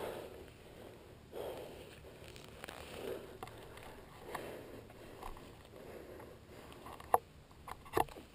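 A resting mountain biker breathing hard close to the microphone, a soft breath about every second and a half, with a couple of sharp clicks near the end.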